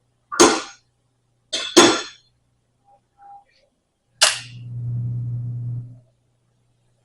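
Sharp metallic cracks: one, then a quick pair, then a fourth, as the hydraulic motor on the cylinder's piston nut is worked to tighten the nut further. The motor then runs with a steady low hum for about two seconds and stops.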